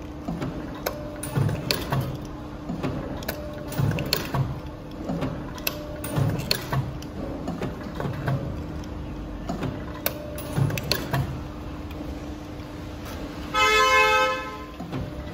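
Hydraulic die-cutting and stamping press cycling rapidly, a stroke with a low thud and a sharp click about once a second over a steady pump hum. Near the end a loud held tone with many overtones sounds for about a second and a half.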